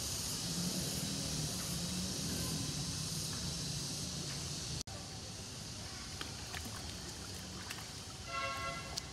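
Outdoor ambience: a steady hiss over a low rumble, broken by a brief drop-out about five seconds in. Near the end comes a short, high, pitched call.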